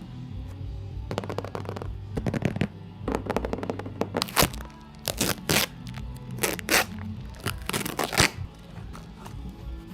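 Packaging being handled and opened: an irregular string of sharp cracks, scrapes and crinkles, over steady background music.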